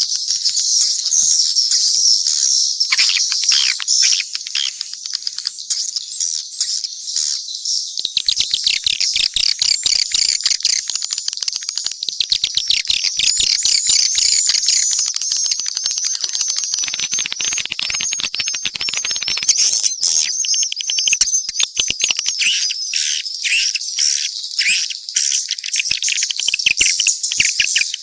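A recording of swiftlets calling in a dense mixed chorus: high-pitched twittering chirps all the way through, with a long stretch of fast rattling clicks in the middle. This is the kind of swiftlet call track played to draw swiftlets into a nesting house.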